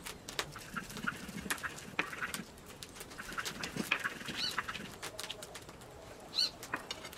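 Stone roller grinding green seasoning on a flat stone masala brick: uneven scraping and knocking of stone on stone. A bird chirps briefly near the middle and again near the end.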